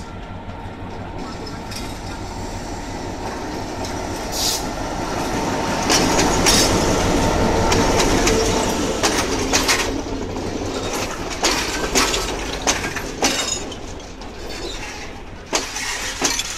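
Class M6 diesel locomotive running past at close range, its engine drone growing louder until it draws level about six to nine seconds in. Then the passenger coaches roll by with a string of sharp clicks from the wheels.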